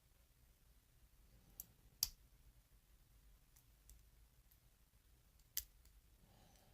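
A few sharp metallic clicks from a pick and tension wrench working the pins of a Burg Wachter pin-tumbler padlock, the loudest about two seconds in, otherwise near silence.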